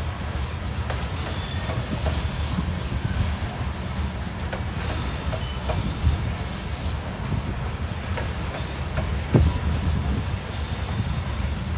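Freight train of covered hopper cars rolling past at close range: a steady low rumble of steel wheels on rail, scattered clicks, and short high wheel squeals now and then. One sharp knock comes about nine seconds in.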